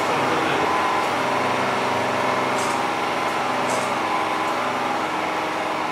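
An engine running steadily, a constant hum with no change in speed.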